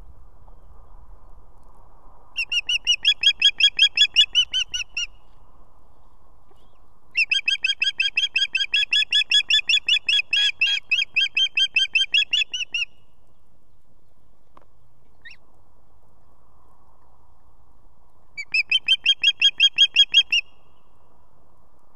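Adult osprey calling from the nest: three runs of rapid, evenly repeated high whistled notes, about five or six a second, the middle run the longest.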